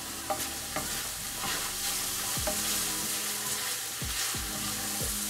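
Chopped onion and smoked calabresa sausage sizzling steadily in olive oil in a stainless steel skillet, stirred with a wooden spatula that scrapes against the pan a few times.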